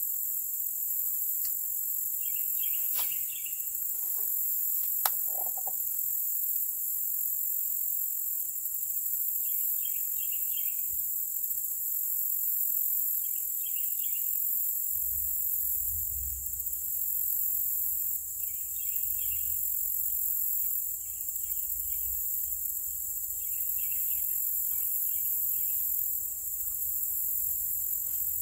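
Steady high-pitched drone of an insect chorus, with short bird chirps breaking in every few seconds and a few sharp clicks in the first five seconds.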